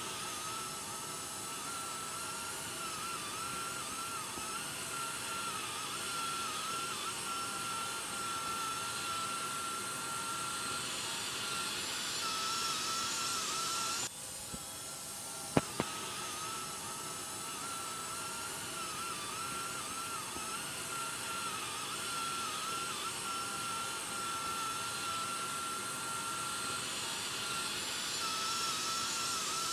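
Samovar at the boil: a steady hiss of boiling water with a thin, wavering whistle-like tone running through it. The hiss swells brighter about twelve seconds in, cuts off abruptly and then starts over, with a couple of sharp clicks just after.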